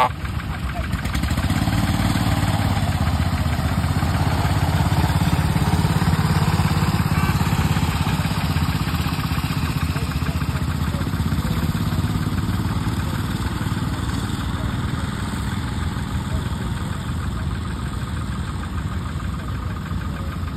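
Engines of small Lister narrow-gauge rail tractors chugging as they run along the track. The sound grows louder over the first few seconds, then slowly fades as they move away.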